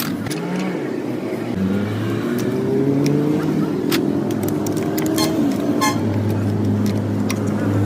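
Motorcycle engine running, its pitch rising and falling as it is revved, with sharp metallic clicks.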